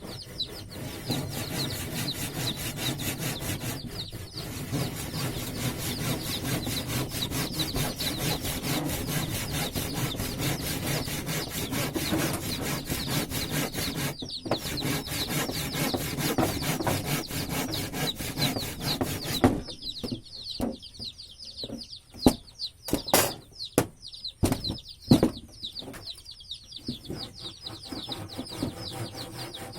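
A tool working wood with a steady rasping, broken twice briefly, which stops about twenty seconds in; then several sharp knocks on wood.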